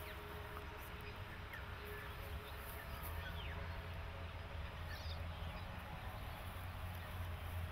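Faint background ambience: a steady low hum with a few brief, faint high chirps scattered through it.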